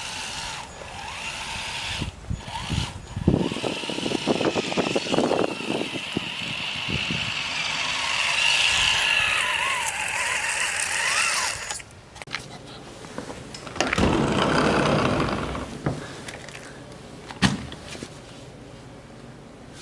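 A radio-controlled truck's electric motor and transmission whine as the truck drives on snow-packed track units, the pitch rising and falling with the throttle. This lasts about twelve seconds and cuts off suddenly, followed by quieter handling noises with a brief rush of noise and a few clicks.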